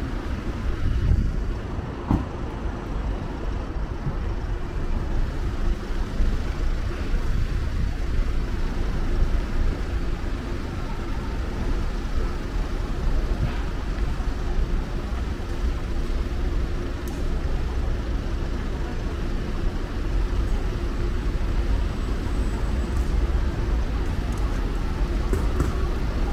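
City street traffic noise: a steady low rumble of vehicles and engines, with a faint steady hum.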